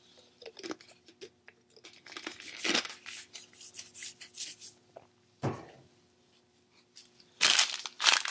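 Small clicks and crackles from a plastic soda bottle being handled, then a single thump as it is set down on the table. Near the end comes loud crinkling and tearing of a plastic candy wrapper being opened.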